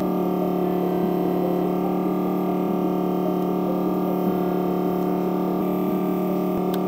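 Background music: one steady held chord with no clear beat.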